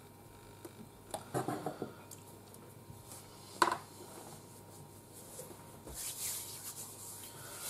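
A painted figure bust being handled and set down on a cutting mat. A clatter of small knocks comes about a second in, then one sharp knock about halfway through, and a brief soft rustle near the end.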